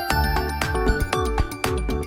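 Honor MagicOS 9 phone tone playing: electronic music with a steady beat of deep drum hits, bright mallet-like notes and sustained synth tones.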